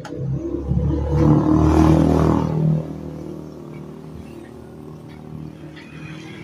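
A motor vehicle engine grows louder over about two seconds, then fades away to a low background.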